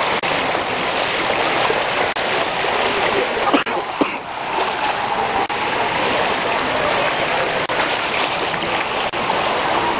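Steady loud hiss of floodwater and rain on a flooded street, with water splashing as people wade through it. Two short knocks about midway.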